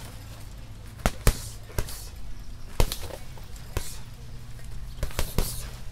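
Punches landing on a punching bag: about eight sharp smacks in singles and quick pairs, with short pauses between.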